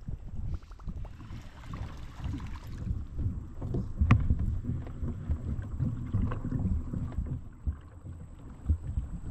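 Fishing kayak on the water: irregular low knocks and bumps of water and gear against its plastic hull, with a sharp click about four seconds in.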